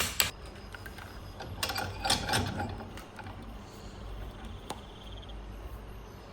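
The last quick hammer strikes, about four a second, stop just after the start. Then come the clatter and clicks of metal parts being handled, with a faint ticking and one sharp click about halfway through.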